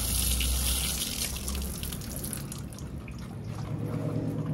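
Water running and splashing over a plastic toy figure being washed, loudest in the first couple of seconds and then easing off.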